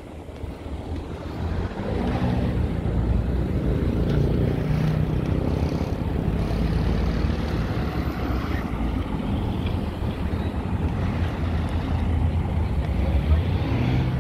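City street traffic: vehicles running past with a low engine rumble, swelling over the first two seconds, with wind on the microphone.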